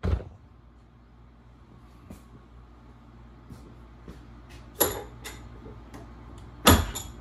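Bench vise being loosened by hand: a thud at the start, then a few light metal clicks and knocks from the vise and the clamped steel, the loudest knock near the end.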